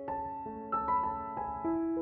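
Background music: soft piano notes, several ringing together in a slow melody.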